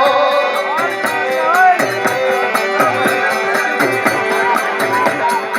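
Gujarati dakla folk music: a fast, steady percussion beat with a held note underneath and short melodic phrases above.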